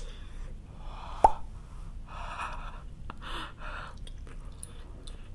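A single sharp pop about a second in, then two breathy huffs of air through the mouth, a person cooling a mouthful of food that is too hot.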